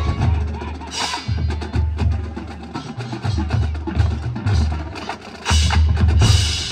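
Marching band percussion section playing a drum feature as the held horn chord cuts off at the start: repeated low bass-drum hits under snare rolls and sharp clicks, with loud crashes about a second in and again near the end.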